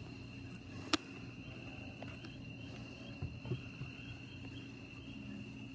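Crickets chirping steadily in a continuous high trill, with one sharp click about a second in.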